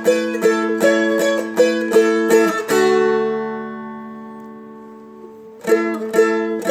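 Seagull Merlin M4, a four-string fretted dulcimer-type instrument, strummed with a flatpick, playing a melody over steady drone strings at about three strums a second. Near the middle a chord is left ringing and fades slowly, then the strumming starts again near the end.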